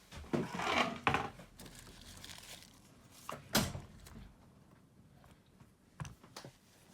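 Handling sounds of a smartphone repair: a short scrape and rustle of tools and small parts on the work surface, with a few sharp clicks, the loudest about three and a half seconds in.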